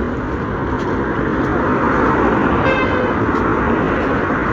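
Steady road traffic noise with a short vehicle horn toot a little under three seconds in.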